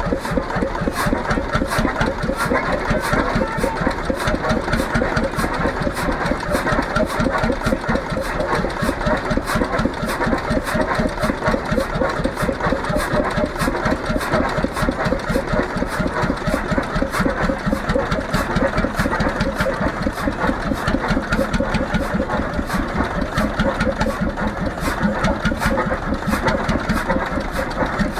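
1925 Heimdal 12 hp single-cylinder two-stroke semi-diesel (hot-bulb) engine running at a steady pace, its firing strokes beating out an even rhythm.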